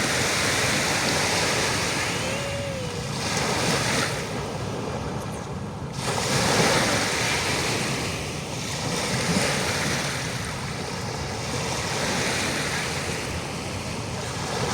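Sea waves washing on the shore, a continuous rush of surf that swells and eases every few seconds.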